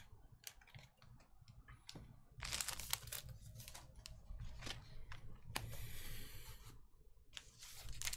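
A foil trading-card pack wrapper (Panini Prizm retail basketball) crinkling and tearing as it is opened by hand, in intermittent rustles with a few light clicks, louder near the end.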